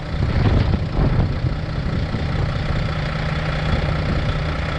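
Semi truck's diesel engine running steadily, heard from inside the cab while driving, with a steady low hum under it and a few rougher knocks in the first second.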